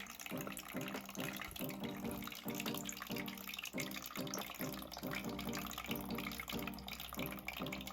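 Water trickling and dripping in an anti-gravity humidifier's water-circulating display, over background music with a steady pulse.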